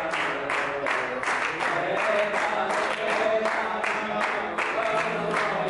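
A group of people singing together while clapping in rhythm, about four claps a second.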